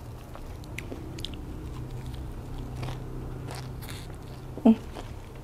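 Close-miked crunchy chewing of fresh leafy vegetables and spicy silkworm-pupa salad, over a steady low hum. One short, much louder sound about four and a half seconds in.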